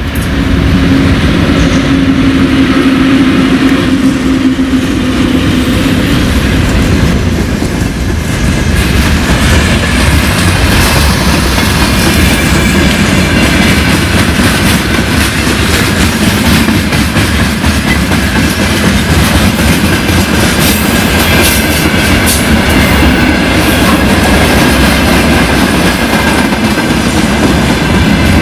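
Freight train passing close by, hauled by a VL10U twin-section electric locomotive. A steady hum over the first six seconds or so as the locomotive goes past, then the wagons rolling by with wheels clattering over rail joints and a faint high steady tone along with them.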